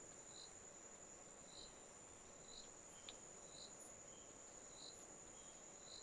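Faint, steady high-pitched insect trill, cricket-like, with short faint chirps about once a second.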